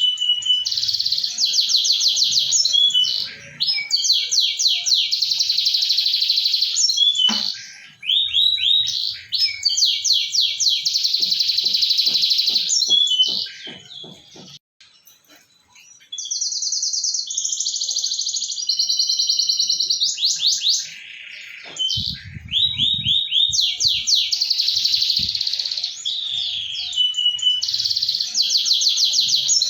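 Domestic canary singing long runs of fast, rolling trills and chirps, with a short pause about halfway through.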